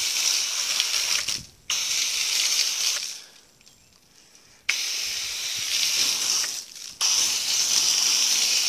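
Hose-end foam gun spraying soapy car-wash solution onto a car's body panels: a hiss of spray in four bursts with short breaks between, the longest break near the middle.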